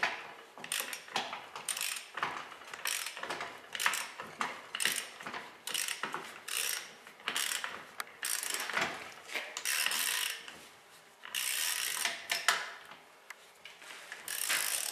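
Socket wrench on a rust-seized Allis-Chalmers wheel eccentric pin, rotated back and forth in its cast housing: irregular bursts of ratchet clicking and grating metal, one or two a second, with a longer scraping stretch about three-quarters of the way through. The corroded pin is tight and is being worked loose with penetrating oil.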